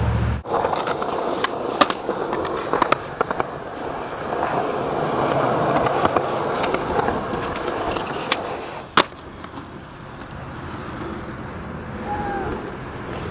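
Skateboard wheels rolling over rough asphalt, with a few sharp clacks of the board and one loud snap about nine seconds in. The rolling is quieter after the snap.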